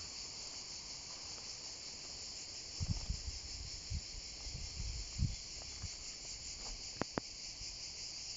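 Steady high-pitched chorus of insects chirring in summer parkland. A few low thumps on the microphone come between about three and five seconds in, and two sharp clicks follow near the end.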